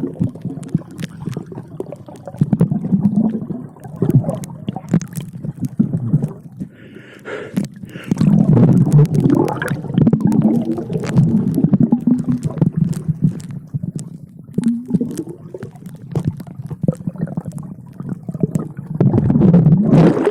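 Muffled gurgling and sloshing of sea water heard from a camera underwater, swelling and fading, with many small clicks and knocks.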